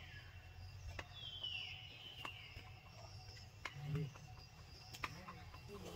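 A high, whistle-like animal call falling in pitch, starting about a second in and lasting over a second. The tail of a similar call sits at the very start. Faint scattered ticks run under it, and a brief low voice-like sound comes near four seconds.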